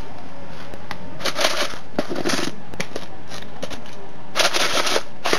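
Handling noise of a plastic jerry can and its hose: three short bursts of rustling and crackling, with a few light clicks between them.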